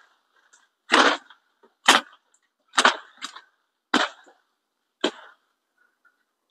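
Woody chopping strokes into a coffee tree's stem, five sharp blows about a second apart, the last near the end.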